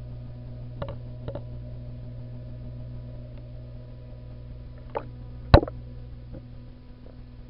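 A few sharp clicks and knocks over a steady low hum: two light ones about a second in, and a louder pair about five seconds in, the second one the loudest.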